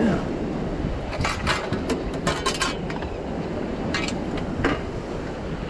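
Sharp clinks and knocks of hard objects being handled: a quick cluster about a second in, then two more a little later, over a steady background noise.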